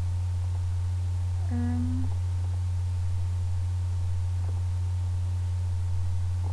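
Steady low electrical hum in the recording, with a short hummed 'mm' from a woman about a second and a half in.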